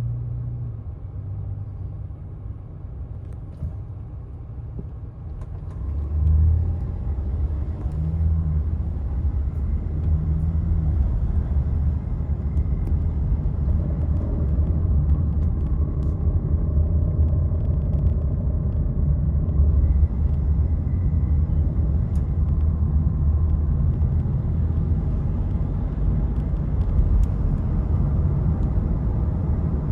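2014 Honda Odyssey minivan's 3.5-litre V6 running in gear, a steady low rumble that grows louder about six seconds in, with faint scattered rattling clicks over it: the rattle the owner hears only when the van is in gear.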